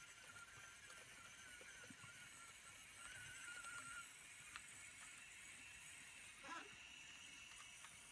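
Near silence: faint room tone with a thin, slightly wavering high whine for the first few seconds, from the small electric motor of a radio-controlled model lorry.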